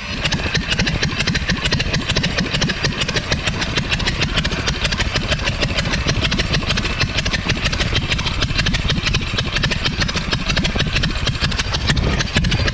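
Verner 3V three-cylinder radial aircraft engine running steadily, a fast, even train of firing pulses.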